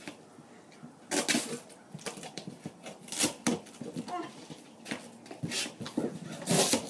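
A taped cardboard box being torn open by hand: packing tape ripped off and flaps pulled back, heard as a string of short, irregular tearing and rustling bursts.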